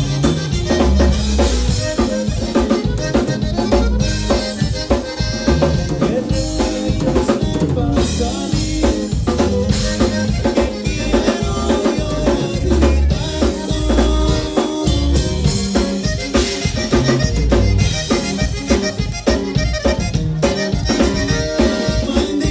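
Live conjunto band playing: accordion, electric bass and guitar over a steady drum-kit beat.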